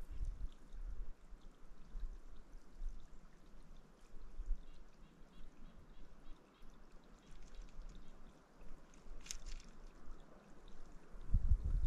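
Faint trickle of a tiny creek, with low thumps on the microphone. A sharp click comes about nine seconds in, and a louder low rumble on the microphone starts near the end.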